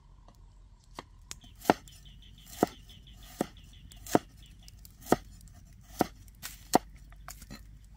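Knife chopping through fresh turmeric root into a wooden chopping block: about eight sharp strokes, roughly one a second.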